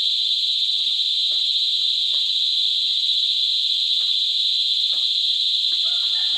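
Steady, loud, high-pitched drone of an insect chorus, with faint short scrapes and rustles of hands working soil.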